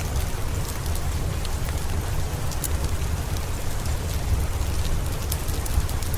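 Steady rain with a deep low rumble under it, dotted with sharp, irregular crackles and pops from a wood fire.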